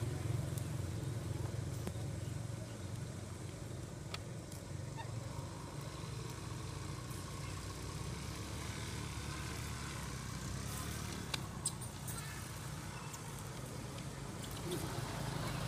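Steady low rumble of outdoor background noise, with a few faint sharp clicks about four seconds in and again around eleven to twelve seconds.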